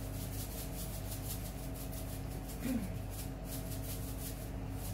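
A salt shaker being shaken over raw fish fillets: a quick run of light rattling ticks for about four seconds, over a steady low electrical hum.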